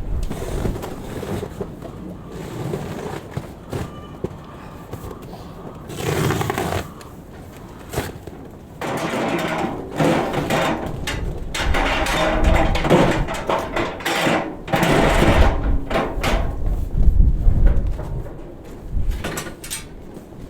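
Irregular rustling, scraping and tearing as a bale of hay or silage is opened and pulled apart, busiest in the second half, over a low rumble of wind on the microphone.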